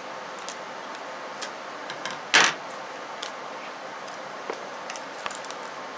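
Scissors cutting open a thin plastic packet and the packet being handled: small crinkles and clicks, with one louder, brief rustle about two and a half seconds in.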